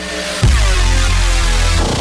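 Electronic dance music with a heavy bass that comes in about half a second in.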